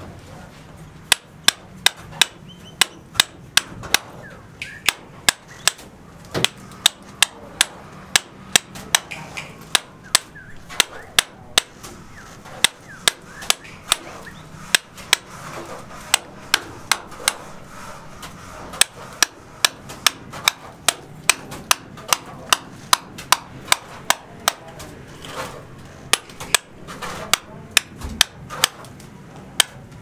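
Hand hammer chipping at a concrete floor: a steady run of sharp blows, about two a second.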